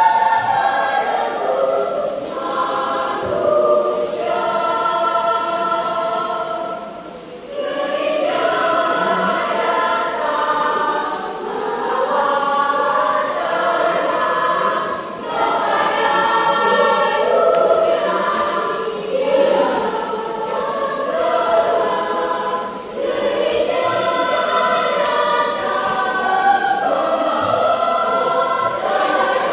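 Children's choir singing under a conductor, in long phrases with short breaks between them.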